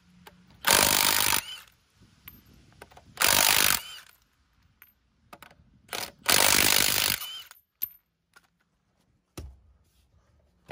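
Cordless impact wrench undoing a car's wheel bolts: three bursts of hammering about a second each, each ending in a short rising whine. A couple of sharp clicks follow near the end.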